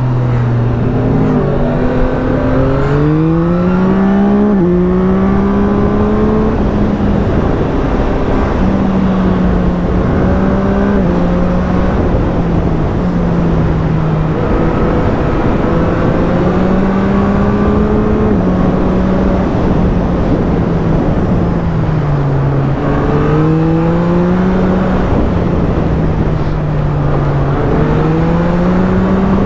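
Yamaha MT-09's 890 cc inline-three engine accelerating through the gears near the start, its pitch climbing and dropping at each upshift. It then runs at a fairly steady pitch, easing off and pulling again twice near the end, over a constant rushing noise.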